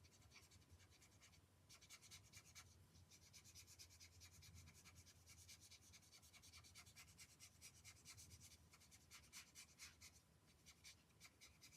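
Faint scratching of a marker's felt tip stroked rapidly back and forth on card while colouring.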